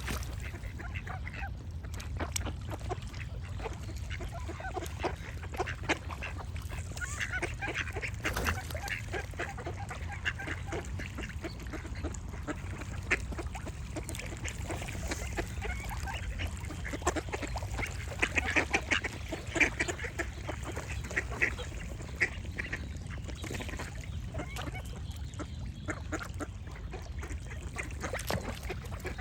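Ducks quacking in quick, repeated bursts, busiest about a quarter of the way in and again past the middle, with birds singing over a steady low rumble.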